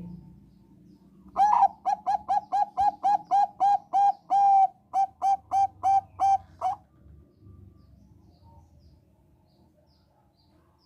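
Zebra dove (Thai-bred 'perkutut bangkok') singing: a run of about eighteen short, clipped cooing notes at roughly three to four a second, lasting about five seconds, with one note near the middle drawn out a little longer.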